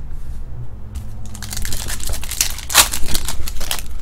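Foil wrapper of a 2017 Topps Stadium Club trading card pack crinkling in the hands, a dense run of crackles starting about a second in and lasting until near the end.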